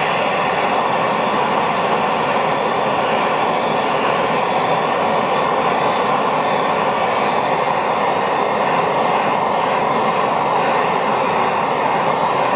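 Handheld gas torch burning with a loud, steady hissing rush of flame, heating a white-gas lantern generator to burn out the swollen cardboard filter stuck inside.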